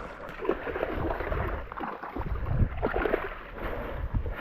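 River water splashing and sloshing around a wading person's legs as they scramble for footing on a slippery bottom, with irregular knocks and rumble of handling noise on the microphone.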